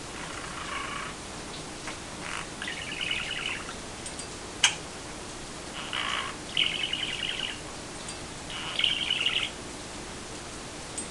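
Budgerigar chattering and warbling in short bursts with its head inside a small hanging bell, its voice echoing in the bell. About halfway through there is a single sharp click.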